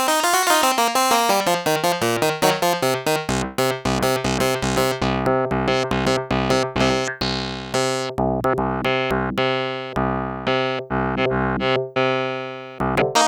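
Sequential Prophet-6 analogue polyphonic synthesizer playing a factory preset: a fast run of short, plucked-sounding notes. A low line slides down over the first two seconds, then a steady pulsing bass sits under quickly repeating higher notes.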